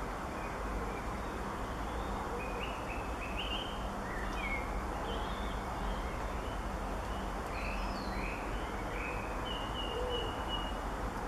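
Birds calling: short high chirps and warbles from a songbird, with a few faint low hooting or cooing calls, over a steady background hiss and low hum.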